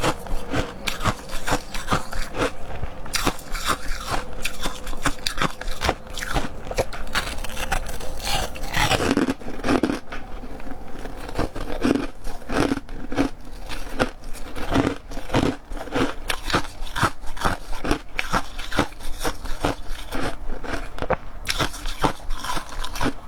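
Chunks of crispy, dry ice being bitten and chewed, a steady run of sharp crunches several times a second.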